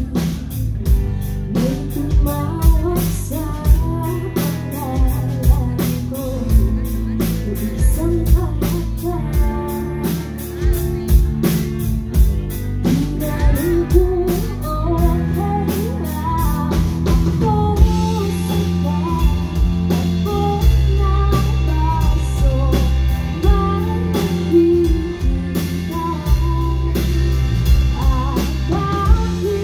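Live rock band playing a song: drum kit keeping a steady beat under bass and electric guitar, with a singer's voice carrying the melody, stronger in the second half.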